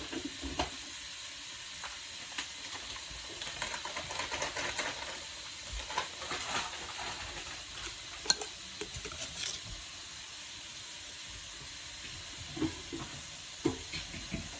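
Fish frying in a pan, sizzling steadily, with scattered light scrapes and clinks of a utensil and one sharper click about eight seconds in.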